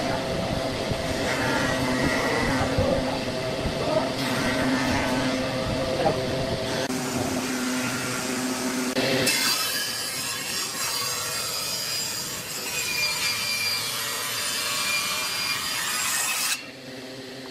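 Table saw ripping a board. From about nine seconds in, the blade cuts through the wood with a steady, bright whine and hiss, and it dips briefly near the end. Before that, steady workshop machine hum.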